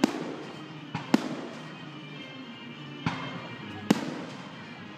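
Fireworks shells bursting overhead: five sharp bangs, two of them close together about a second in, with the rumble of the display between them and faint music underneath.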